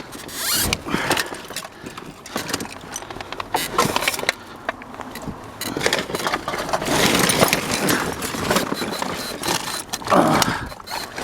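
Scrap and debris in a dumpster clattering and scraping as it is handled and stepped through: an irregular run of knocks, clicks and rustles, busier about two-thirds of the way through.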